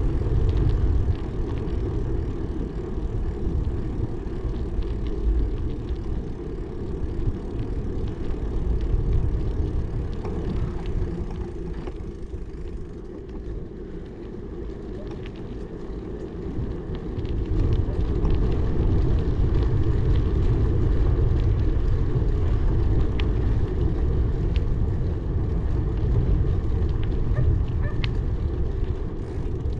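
Wind rumbling on the microphone while riding a bicycle, with small scattered clicks and rattles. The rumble eases a little about halfway through, then picks up again.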